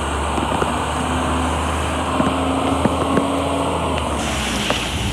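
Garbage truck engine running as the truck drives past close by: a steady low drone, with a held tone through the middle that stops about four seconds in.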